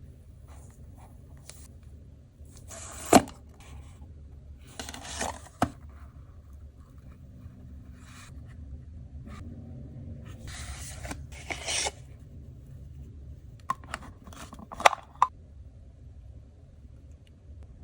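Packaging of a 1:64 diecast model car being handled and opened by hand: several brief scraping rubs and a few sharp clicks.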